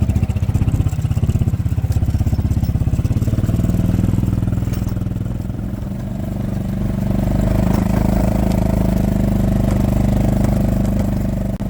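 Cold wind buffeting the phone's microphone: a loud, continuous low rumble that eases a little midway and then builds again.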